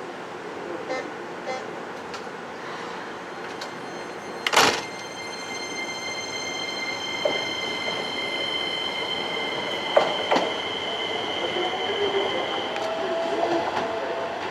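Electric commuter train sounds at a station platform: a sudden loud burst about four and a half seconds in, then a steady high-pitched tone held for about eight seconds, with a couple of sharp clicks around ten seconds in.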